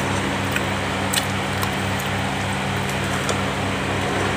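Steady machine hum like a room fan or air conditioner, with a low pulsing about four times a second. A few faint light clicks of plastic cutlery on the food container sound over it.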